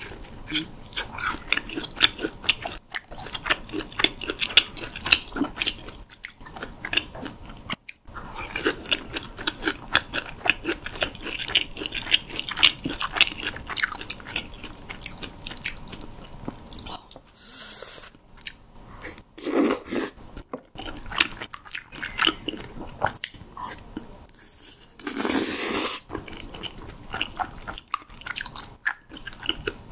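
Close-miked chewing of crispy fried mozzarella cheese balls: a steady run of crunchy bites and sticky chewing with many small crunches and clicks. Twice, about 20 and 25 seconds in, a longer rushing noise stands out.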